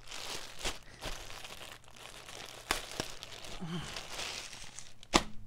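Packaging crinkling and rustling as a folded t-shirt is unwrapped and pulled out, with a few sharp crackles along the way, the loudest about five seconds in.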